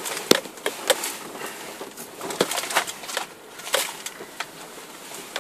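Irregular sharp clicks and knocks from a hand-held camera being carried on foot, over a light outdoor hiss.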